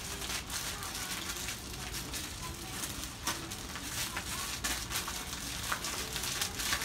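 Beaten egg frying in a nonstick pan: a steady sizzle with frequent small, sharp crackles throughout.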